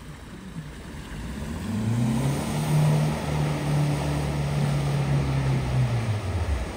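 A vehicle engine pulling through floodwater, with water rushing and splashing around it. The engine note climbs from about a second and a half in, holds steady, then drops away just before the end.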